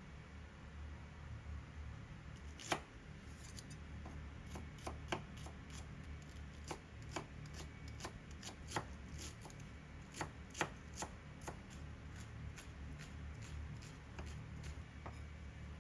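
Kitchen knife cutting on a cutting board: irregular sharp strokes, sometimes one every second or so, sometimes a few in quick succession, over a steady low hum.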